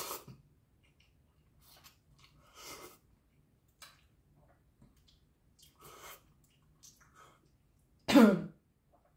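A few faint, short mouth sounds of eating, then a woman's single loud cough about eight seconds in.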